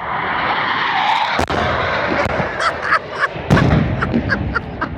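BAE Hawk T2 jet trainers' Rolls-Royce Adour turbofans passing, the jet noise swelling with a deeper rumble past the middle. From about two seconds in, a quick run of short sharp sounds rides over it.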